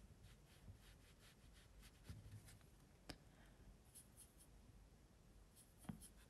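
Very faint, quick strokes of a watercolour brush on paper, fading out within the first few seconds. Then two small clicks and a few light dabs as the brush is worked in a well of a plastic watercolour palette.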